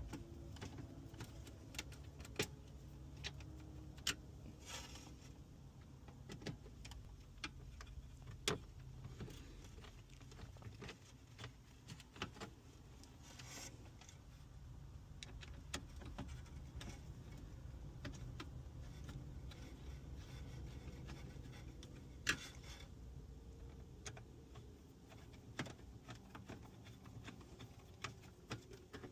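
Faint scattered clicks and light metallic rattles of screws and a screwdriver while a radio is being screwed back into a car dashboard, over a low steady hum.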